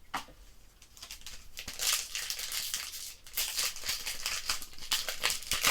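Trading card packaging crinkling and rustling as cards are handled, a run of quick crackles and clicks that starts about two seconds in.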